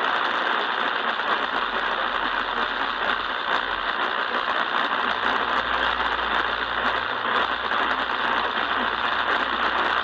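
Steady static hiss from an Eton portable radio's small speaker, with no clear voice coming through.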